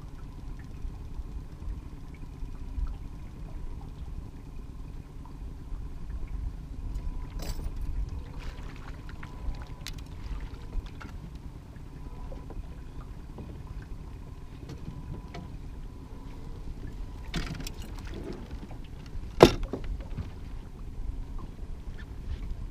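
Steady low rumble of a fishing boat's outboard motor running slowly, with a faint steady whine over it and a few small clicks. Near the end there is a brief clatter, then a single sharp knock on the boat, the loudest sound.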